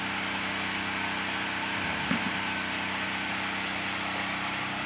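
Steady low hum of a running engine or motor over a constant background hiss, with a brief pitched sound about two seconds in.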